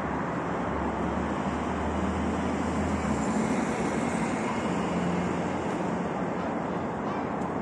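Steady road traffic on a multi-lane city avenue: cars passing with a continuous tyre and engine rush. A low engine hum drops away about three seconds in.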